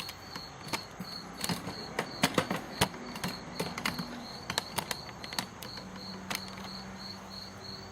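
Scattered sharp clicks and knocks of gear being handled, with a cricket chirping in a steady pulsing trill behind them.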